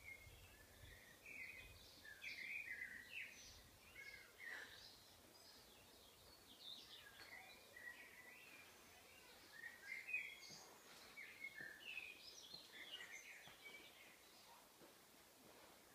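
Faint birdsong: many short, high chirps and twitters, one after another throughout.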